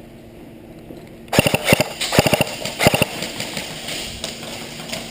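Three short bursts of airsoft gunfire, sharp rapid clacks, coming about a second and a half in and ending about three seconds in.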